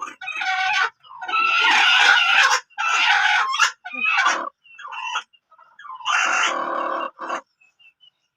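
Chickens calling loudly in a run of squawks and clucks, one held for over a second, with fainter small chirps near the end.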